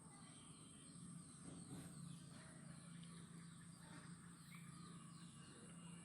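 Faint outdoor rural ambience: scattered small bird chirps and calls over a steady high-pitched tone, with a low hum starting about a second in.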